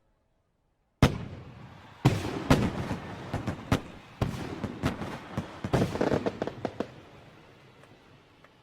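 Fireworks going off: a string of sharp bangs at irregular intervals, each with a rumbling tail. They start about a second in and thin out and fade toward the end.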